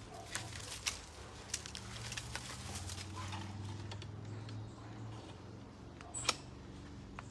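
Scattered twig snaps and rustling among sycamore branches as someone moves about in the tree, with a sharp crack about six seconds in.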